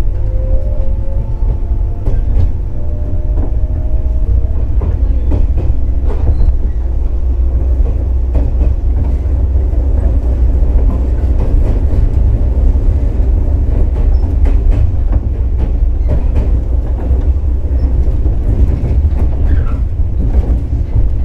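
Cabin sound of a JR 415 series 100 subseries electric multiple unit under way, with a steady low rumble and scattered clicks of wheels over rail joints. In the first few seconds the whine of its MT54 traction motors rises in pitch as the train gathers speed.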